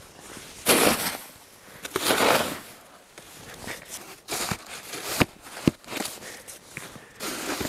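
Snow shovel scooping and scraping through snow: two long crunching swishes in the first half, then a few sharp knocks and smaller crunches.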